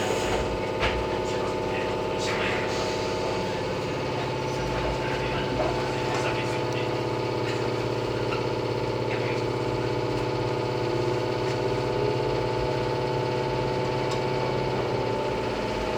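Izuhakone Railway 3000-series electric train heard from inside the car, a steady hum of motors and equipment with a lower hum growing a few seconds in as it pulls away from a station.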